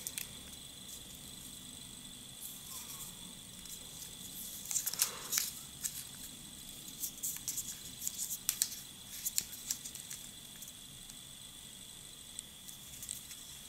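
Plastic cases of rechargeable 9-volt batteries clicking and rubbing together as they are handled, in short scattered bursts. A faint steady high-pitched whine runs underneath.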